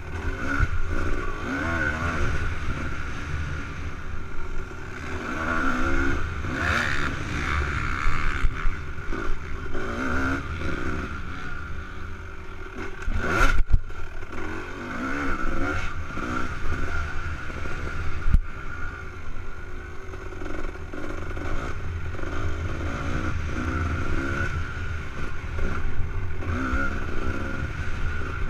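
Honda CR250R's 250cc two-stroke engine revving up and down as the bike is ridden around a motocross track, heard from the rider's onboard camera. A single sharp knock comes about halfway through.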